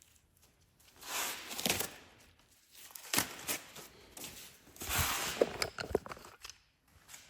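Rustling and handling noise in three bursts, with a few light knocks mixed in, as things are moved about in a small shop.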